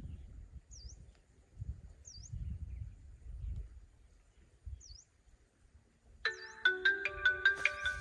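A bird gives a short, high, down-and-up chirp every second or so over low rumbling noise. About six seconds in, a mobile phone ringtone starts playing a melody of clear notes and becomes the loudest sound.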